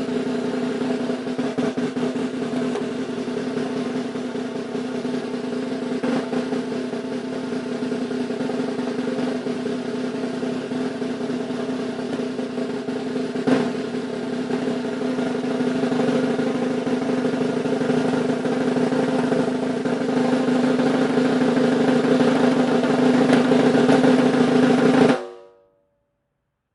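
Snare drum roll, continuous and even, growing a little louder toward the end and then cutting off abruptly; a single sharper stroke stands out about halfway through.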